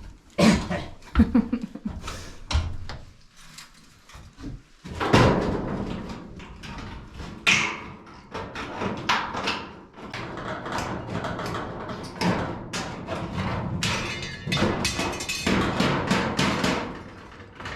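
Background music with percussion.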